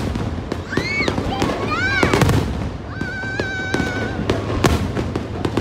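Aerial fireworks shells bursting overhead: repeated sharp bangs and crackling. High pitched calls rise and fall about one and two seconds in, and a steady high tone is held for about a second near the middle.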